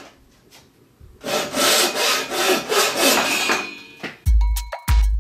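Traditional Chinese frame saw rip-cutting oak: after a short pause, a run of quick, even push-and-pull strokes of the blade through the wood, about three a second. Music with a heavy beat comes in near the end.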